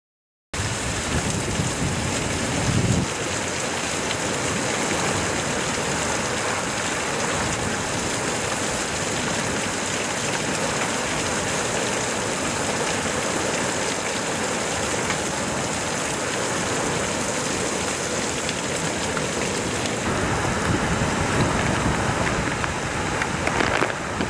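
Heavy rain falling in a steady, even hiss, cutting in abruptly about half a second in.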